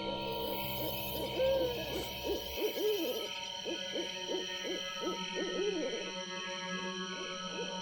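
Owls hooting over and over, short rising-and-falling hoots overlapping, layered over steady eerie humming tones as a spooky sound effect.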